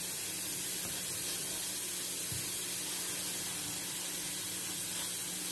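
Steady, even hiss that does not change, with a faint low hum under it; the same background noise carries on under the speech on either side.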